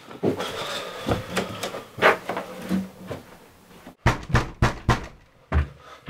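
Bedding rustling and shifting, then about five heavy thuds in quick succession near the end: footsteps hurrying down wooden stairs.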